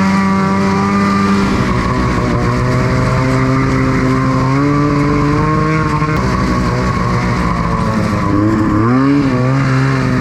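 Ski-Doo snowmobile engine running under way, heard from the rider's seat; the engine pitch drops about halfway through, then dips and climbs again near the end as the throttle changes.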